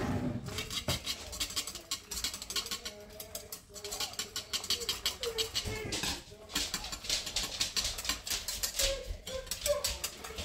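A utensil stirring fast in a metal cooking pot, scraping and clicking against its sides and bottom in quick strokes to break up clumps in a thickened gumbo base. The stirring pauses briefly twice.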